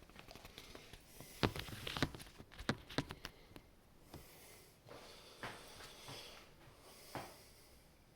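Handling noise from the laptop: a run of sharp clicks and knocks with light rustling, busiest in the first half, then a few single knocks further on.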